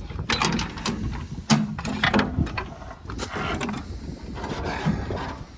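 Metal parts of a tractor's PTO gear assembly clinking, knocking and scraping as they are handled and shifted, with a string of sharp knocks, the loudest about a second and a half in.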